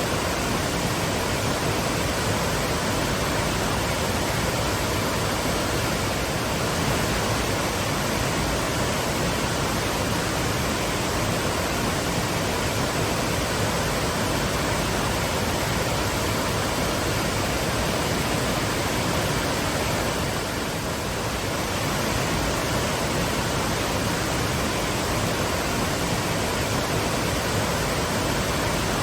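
Waterfall rushing: a steady, dense roar of falling water, dipping slightly about two-thirds of the way through.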